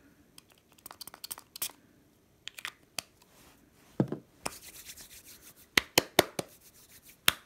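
A small clear plastic spray bottle handled over a wooden desk: scattered light clicks and taps, a thump about four seconds in as it is set down, then scratchy rustling and a few sharp clicks near the end.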